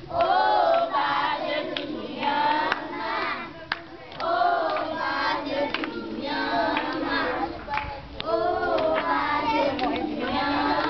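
Group of children singing a song together, with scattered hand claps.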